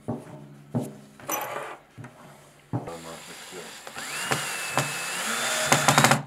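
Bosch cordless drill-driver driving a lug screw into a chrome drum shell: it starts about three seconds in, its motor whine rising and holding, then stepping up higher, and ends in rapid clicking before cutting off suddenly. Before it, light rubbing and clicks from a squeegee worked over the drum head.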